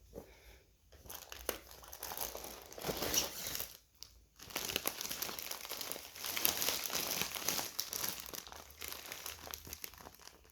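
Packaging of bagged dry food packs rustling as they are handled and pulled out of a box, with a short lull about four seconds in.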